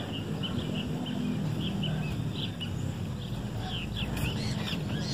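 Small birds chirping, many short high chirps that come thicker in the last second or so, over a steady low background rumble.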